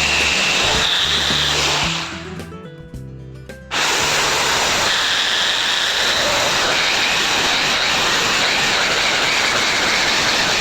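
A power tool running loudly with a hissing whine. It stops about two seconds in and starts again just before four seconds, with background music underneath.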